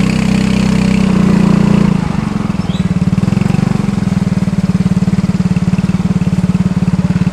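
Bus engine running through a snoring ('ngorok') exhaust: a steady drone for about two seconds, then it settles into a rapid, even throbbing pulse, as at idle.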